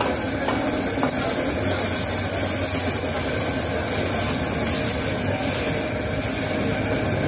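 Chopped chicken with onion and green chillies sizzling on a large flat iron griddle, stirred and scraped with a metal spatula, with a few light spatula ticks in the first second, over a steady background rumble.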